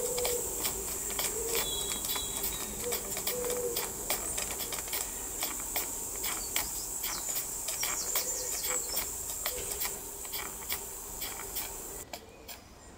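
Chiltern live-steam model beam engine running, its moving parts clicking lightly and regularly over the steady hiss of the gas-fired boiler's burner. Near the end the hiss cuts off suddenly as the gas is shut off, and the engine keeps clicking on the last of the steam.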